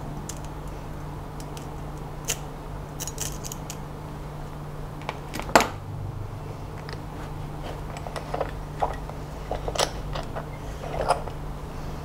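Small metallic clicks and taps from a brass pin-tumbler lock cylinder being taken apart in a vise with needle-nose pliers, the sharpest click about halfway through and a run of lighter clicks after it. A steady low hum sits underneath.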